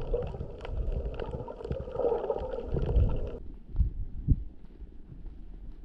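Muffled water noise heard through a camera held underwater: sloshing and bubbling against the housing that thins out about three and a half seconds in, leaving a quiet low noise with two soft thumps.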